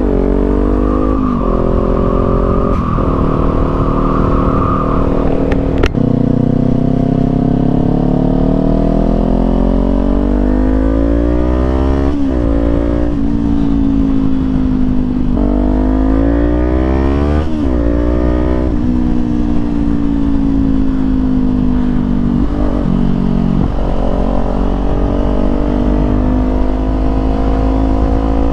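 Small parallel-twin sport motorcycle accelerating and shifting up through the gears, heard from the rider's helmet. The engine note climbs, drops sharply at each gear change, then rises again, over a steady wind rush.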